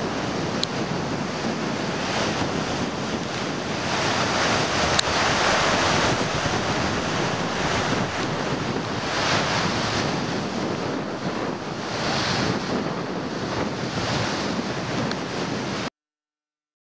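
Steady rushing outdoor noise that swells every few seconds, with a few faint clicks; it cuts off suddenly near the end.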